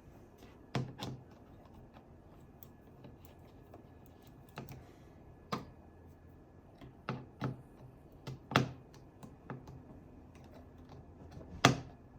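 Irregular sharp clicks and knocks of hard parts being handled and fitted onto an airsoft M4's handguard rail, about nine in all, the loudest near the end.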